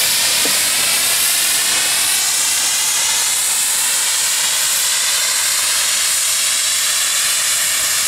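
Shay No. 5, a three-cylinder geared steam locomotive, moving slowly with a loud, steady hiss of steam.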